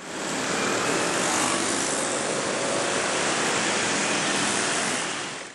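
A steady rushing noise, even and without any tone or beat, that fades in quickly and fades out at the end.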